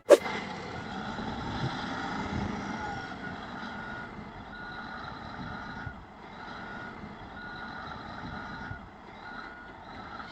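A heavy vehicle's reversing alarm beeping at an even pace, about one beep every 0.7 seconds, over a running diesel engine. A sharp click comes at the very start.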